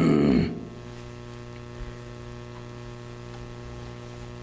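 Steady electrical mains hum, a low buzz with many overtones, during a pause in speech.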